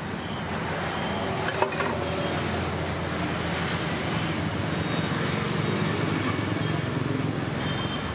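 Road traffic: a motor vehicle's engine running steadily close by, with a couple of sharp metallic clinks about a second and a half in.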